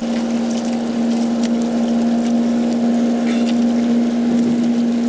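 Boat engine idling with a steady, even hum, with a few faint clicks over it.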